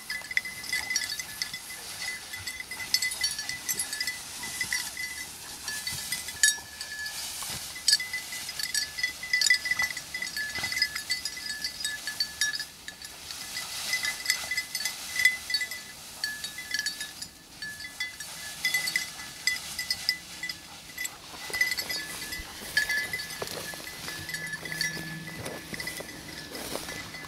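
Bell on a German shorthaired pointer's collar, jingling on and off as the dog works through the cover, over rustling of dry brush.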